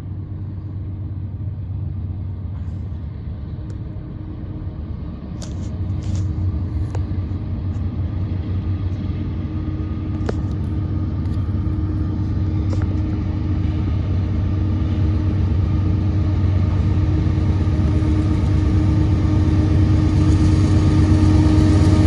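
CSX diesel freight locomotive approaching with its train, a steady low engine rumble growing steadily louder as it nears. A few brief clicks at about five to six seconds in and again near ten seconds.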